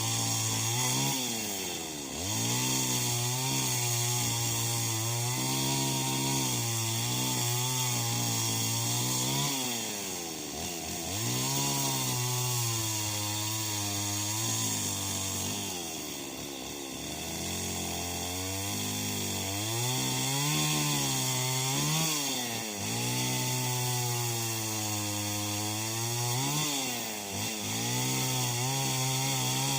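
Two-stroke chainsaw cutting branches, its engine revving up to full speed through each cut and dropping back toward idle between cuts, about five times.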